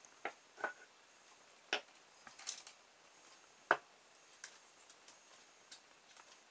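Small clicks and light knocks from wires and a little circuit board being handled on a wooden workbench: five sharper taps in the first four seconds, then a few lighter ticks.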